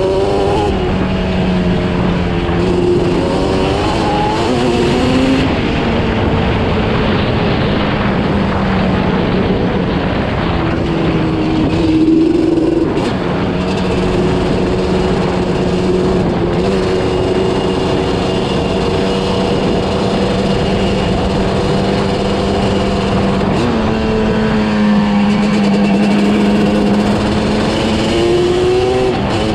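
1990 Yamaha Banshee ATV's parallel-twin two-stroke engine running under way on a dirt track. It mostly holds a steady pitch, with shifts up and down in revs near the start, around four seconds in, and over the last few seconds.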